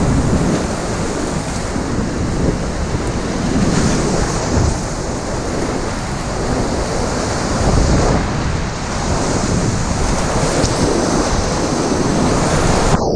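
Whitewater of a river rapid rushing loudly and steadily, with wind buffeting the microphone in a low rumble.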